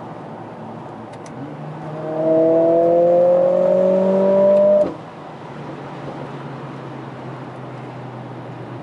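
Mercedes-AMG CLA 45 S's turbocharged four-cylinder engine, heard from inside the cabin, pulling hard in a lower gear with the revs climbing for about two and a half seconds, then cutting off abruptly as the throttle is lifted. The car then cruises with a steady low engine hum and road noise.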